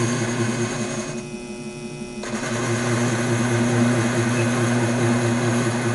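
Taig lathe running steadily with a hum, its ball turning tool cutting a 3/8-inch 304 stainless steel ball. The cutting noise drops away for about a second, about a second in, then resumes.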